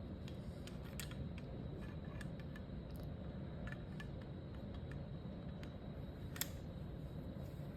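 Small metal clicks and taps from a Smith & Wesson Model 34-1 .22 revolver being handled as its crane is fitted back into the frame, scattered through, with one sharper click about six and a half seconds in, over a low steady hum.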